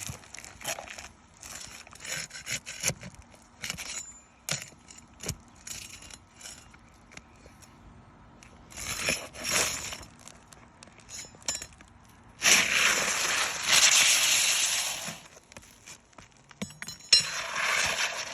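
Hands and tools working asphalt roof shingles: scattered clicks, clinks and gritty crackles, then a long, loud scraping rub about two-thirds of the way through and a shorter one near the end.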